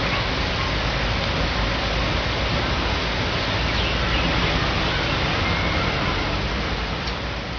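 Steady rushing noise with a few faint, short, high chirps, fading near the end.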